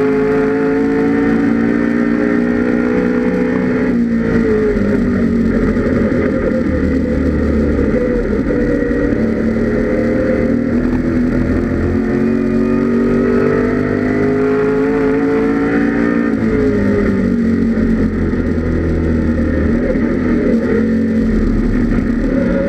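1984 Ford Mustang GT Group A race car's 5.0-litre carburetted V8 running at full throttle, its pitch climbing steadily and then dropping sharply about four seconds in and again near the end before climbing once more.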